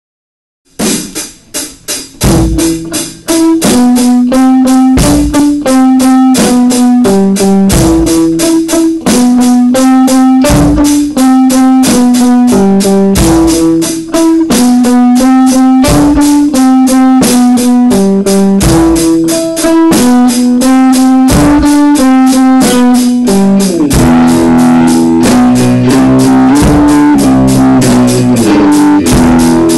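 Pearl drum kit and electric guitar playing together live: a steady drum beat under a repeating guitar riff. It opens with a few separate hits before the full beat starts about three seconds in, and there is more cymbal wash in the last several seconds.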